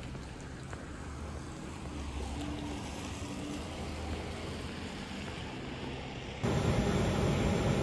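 Steady outdoor wind and wet-road traffic noise with a low rumble. About six and a half seconds in it cuts abruptly to a louder steady roar with a faint hum: airport apron noise around a parked airliner.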